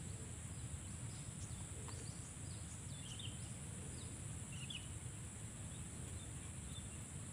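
Faint outdoor ambience: a steady high-pitched insect drone with scattered short bird chirps, most of them between about two and five seconds in, over a low rumble.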